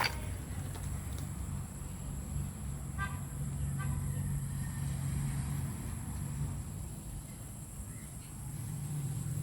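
A low, steady rumble, with two short poultry calls about three seconds in.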